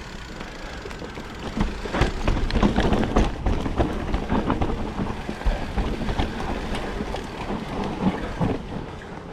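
2020 Specialized Enduro full-suspension mountain bike descending a rough trail: tyres rolling over dirt and rocks, with the chain and frame rattling in quick clatters, heaviest from about one and a half to four seconds in. Wind rushes over the microphone throughout.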